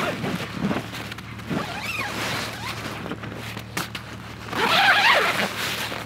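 Tent door zipper being pulled open from inside in several pulls, the longest and loudest about five seconds in, with the nylon tent fabric rustling.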